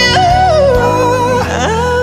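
A man singing high held notes into a microphone over a backing track. The voice glides down between notes and swoops to a new note about a second and a half in.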